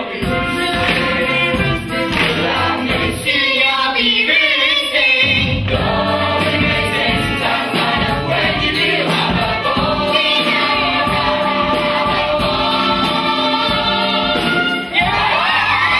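A full stage-musical cast singing the finale together as a choir with musical accompaniment, building to a long held chord. Audience cheering and whoops break out near the end.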